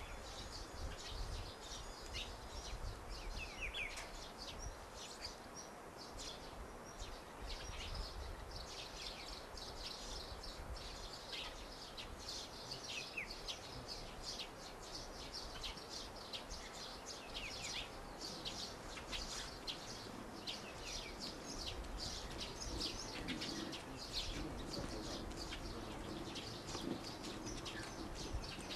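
Small birds chirping and twittering over a steady outdoor background, with many short, high calls in quick succession; a faint steady hum comes in over the last few seconds.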